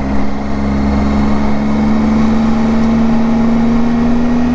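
Triumph Tiger 800's three-cylinder engine running steadily under way, its pitch rising slowly as the motorcycle gathers speed.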